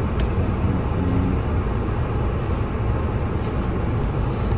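Steady road noise of a car being driven: a continuous mix of tyre and engine noise.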